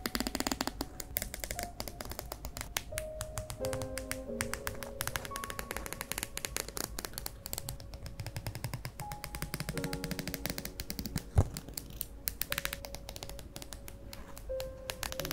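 Small scissors snipping around a paper sticker in many short, quick cuts, with one sharper snip about three-quarters of the way through, over soft background music.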